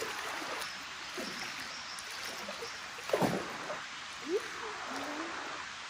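People wading knee-deep into a shallow creek, the water swishing and trickling around their legs. A few short vocal cries break through, the loudest a falling one about three seconds in.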